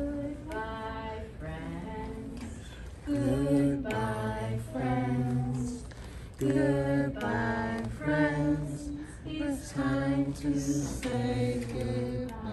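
A small group of voices, led by a woman, singing a children's song together without instruments, in phrases of held notes.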